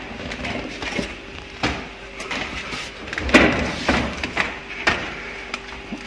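Handling noise: scattered clicks and knocks, with a louder rustling scrape about three seconds in.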